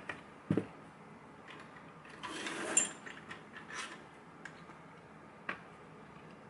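Lock being picked: a pick and tension wrench scraping and clicking inside a pin tumbler lock. There are sharp clicks about half a second in and again near four and five and a half seconds, and a longer scratchy scrape a little past two seconds in.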